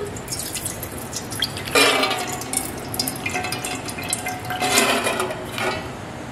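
Water poured in a stream into an aluminium pot, then green gram (mung beans) tipped in from a steel bowl, splashing and pattering into the water, loudest about five seconds in.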